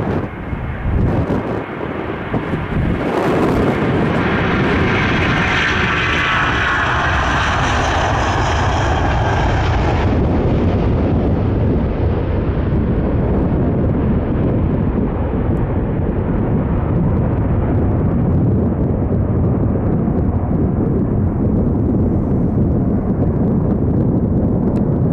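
Large jet airliner passing overhead on its landing approach. Jet noise builds a few seconds in, with a high engine whine that is strongest for several seconds. The whine drops away about ten seconds in, leaving a steady low rumble.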